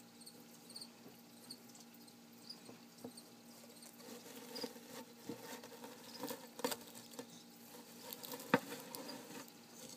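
Metal tweezers poking and scraping into loose terrarium substrate: a scatter of rustles and small clicks starting about four seconds in, with a sharper click about eight and a half seconds in. A cricket chirps faintly and evenly in the background.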